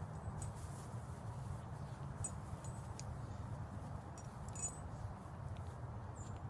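A West Highland terrier chews and drags a plush toy opossum on dry grass: faint rustling with scattered small clicks, over a steady low rumble. A few faint, short, high chirps come through at intervals.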